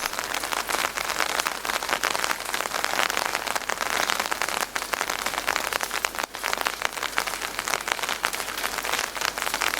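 Steady rain falling, a dense, even hiss full of small, close-spaced drop ticks.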